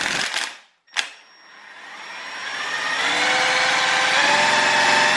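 3D-printed Pelton turbine and its motor-turned-generator running on a water jet under the load of a heater. Its whine dies away just after the start, a sharp click comes about a second in, and then the whine rises in pitch over about two seconds and holds steady.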